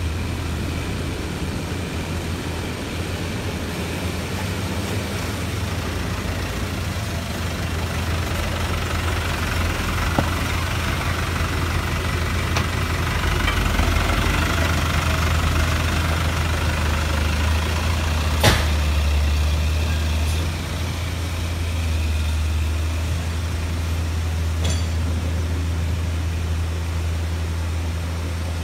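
Diesel engines of a dump truck and an excavator running steadily at low revs, a continuous low drone. One sharp click cuts through about two-thirds of the way in.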